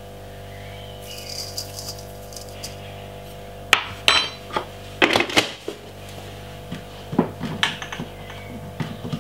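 A metal spoon clinks and taps against a stainless steel mixing bowl as dry seasoning is shaken over raw chicken. A light rattle comes first, then several sharp ringing clinks from about four seconds in.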